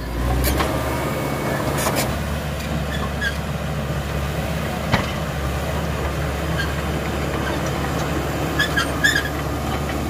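CAT D5K XL crawler bulldozer's diesel engine running steadily under load as it pushes soil with its blade, with a few sharp knocks along the way.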